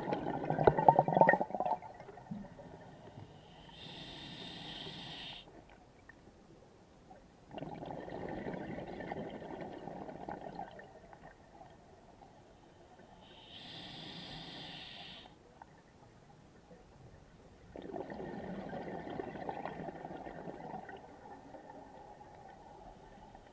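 Scuba diver breathing underwater through a regulator: a short hiss from the demand valve on each inhale, then a longer gurgle of exhaled bubbles, in a slow, even cycle about every ten seconds.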